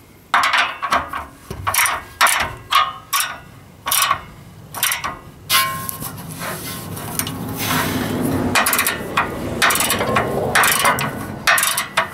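Socket ratchet clicking in irregular spurts, with metal clinks of the socket and extension on the nuts of a U-bolt exhaust clamp being tightened. A busier stretch of rattling comes about halfway through.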